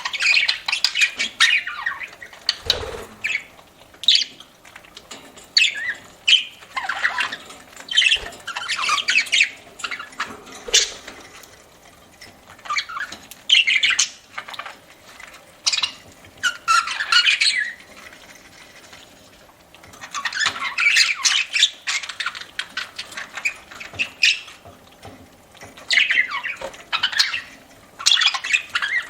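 Pet budgerigars chattering and squawking in repeated short bursts, with a lull of a couple of seconds about two-thirds of the way through.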